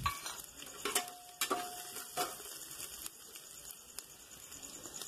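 Flat metal spatula scraping and knocking against the inside of an aluminium pressure cooker while stirring onions frying in oil, with a faint sizzle underneath. Several sharp clicks, and a short metallic ring about a second in.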